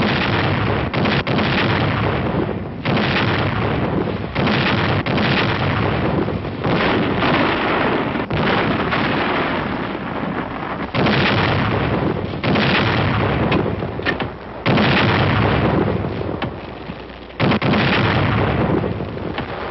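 Artillery barrage: about a dozen heavy booms, every one to three seconds, each trailing off in a long rumble.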